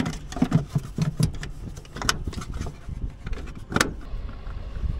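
Hands working at the plastic rear cover of a Sprinter van's headlight: scattered clicks, taps and scrapes, with two sharper clicks about two seconds in and near four seconds in, over a steady low rumble.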